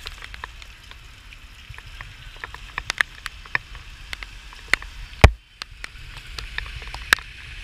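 Rain falling, heard as irregular sharp drop ticks over a steady low rumble, with one loud sharp knock a little after five seconds in.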